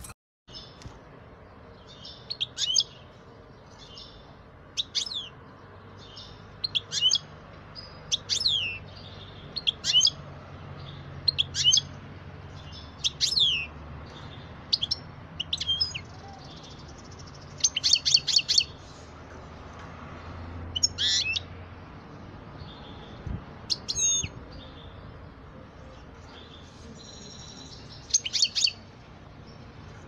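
Small songbird giving short, high chirps every two seconds or so, some sliding down in pitch and a few in quick rattling clusters, over a steady low hum.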